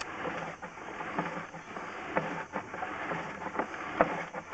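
Drain camera push rod being fed into a sewer pipe: irregular clicks and knocks, several a second or so apart, over a steady hiss.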